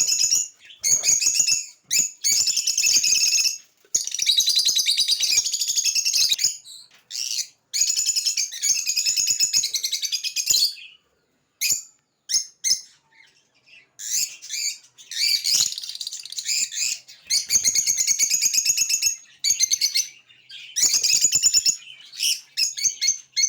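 A group of African lovebirds chattering with dense, high-pitched chirps in bursts, dropping to a few scattered chirps for a few seconds about halfway through.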